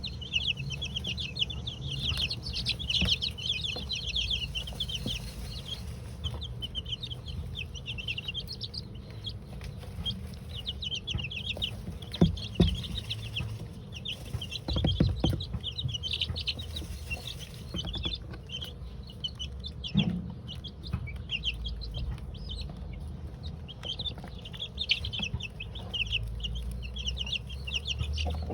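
A brood of two-week-old chicks peeping nonstop, many short high peeps overlapping, with a low rumble beneath and a few dull knocks midway through.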